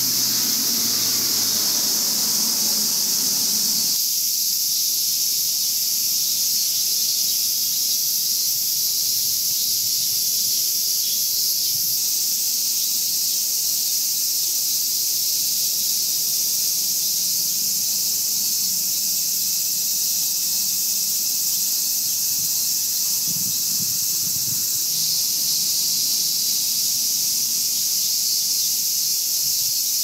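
Cicadas in full summer chorus, a loud, unbroken high-pitched ringing hiss that holds steady without pause.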